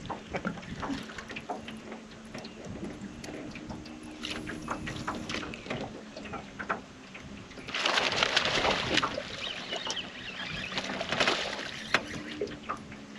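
Water sloshing and splashing around a small aluminium boat, with a louder burst of splashing about eight seconds in and a shorter one just after eleven seconds. A faint steady hum runs underneath.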